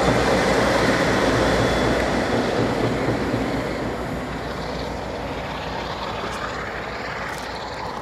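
Class 47 diesel locomotive's Sulzer twelve-cylinder engine working under load as it hauls a train away, its low rumble and the train's rolling noise fading steadily as it recedes.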